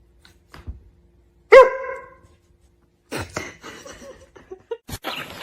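A dog barks once, a single loud bark about a second and a half in, followed by softer scattered noises.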